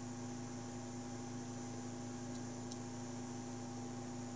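3D printer's two stepper motors on a slow move, driven at 2 A RMS by TMC2660 drivers, together with a small 40 mm cooling fan: a steady hum made of several steady tones over a faint hiss. Two faint ticks come a little past halfway.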